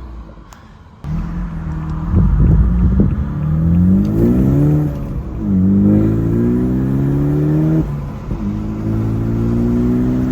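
BMW 428i with an AWE axle-back exhaust accelerating through the gears. The engine note comes in loudly about a second in and climbs in pitch, drops at an upshift about halfway through, climbs again, then drops at a second upshift and settles into a steady cruise.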